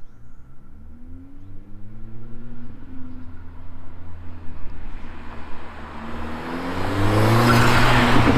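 Mercedes-AMG CLA45's turbocharged 2.0-litre four-cylinder accelerating towards and past, the engine note rising twice and loudest near the end. With a K&N air filter fitted, a light turbo hiss is heard under the exhaust, which mostly drowns it out.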